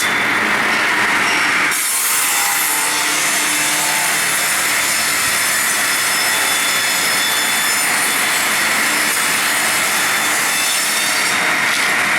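Twin-blade circular log saw cutting through a log. The running saw bites into the wood about two seconds in, then carries on with a steady hiss and a high whine from the blades in the cut.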